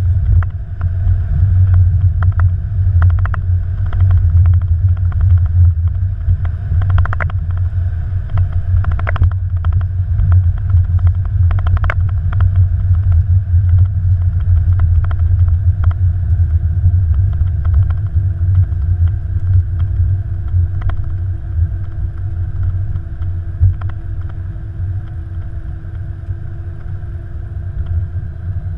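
Airbus A330-200 cockpit rumble as the airliner rolls out and slows on the runway after landing, with scattered knocks and rattles in the first half. A steady hum comes in about halfway, and the rumble eases near the end as the aircraft slows toward the turn-off.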